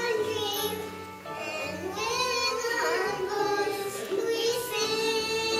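Two young girls singing a duet into a microphone over instrumental accompaniment.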